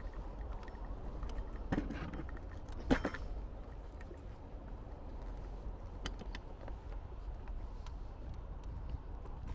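Outdoor city street ambience: a steady low rumble with a knock about two seconds in, a sharper, louder knock about a second later, and a few faint clicks after that.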